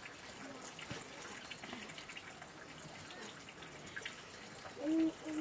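Water trickling and dripping steadily. Near the end comes a short held tone, louder than the water.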